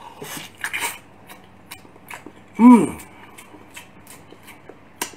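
A man biting into and chewing a whole cooked pig's head: short wet clicks and smacks of eating, with one short loud hum from him about two and a half seconds in.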